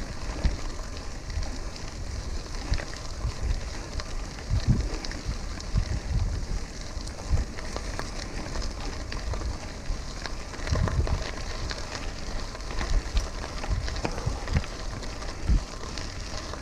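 Bicycle tyres rolling on a road with a steady hiss and scattered small ticks, with irregular low thumps of wind on the microphone.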